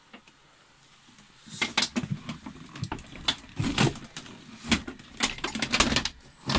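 Companionway steps that double as the engine cover being lowered back into place: a run of sharp wooden knocks and bumps after a quiet first second or so.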